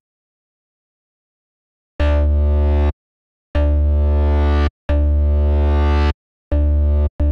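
Software synthesizer bass patch being auditioned with a custom LFO shape on its filter. After about two seconds of silence, five held notes on one steady pitch play, each half a second to just over a second long, with short gaps between them. Each note is rich in overtones with a strong low end.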